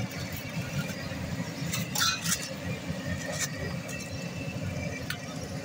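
Roadside street ambience: a steady low rumble of traffic, broken by a few sharp clinks.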